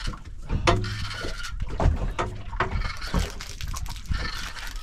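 Handling noise aboard a small fishing boat while a hooked fish is wound in on a rod and reel: irregular knocks and clicks over a steady rushing background.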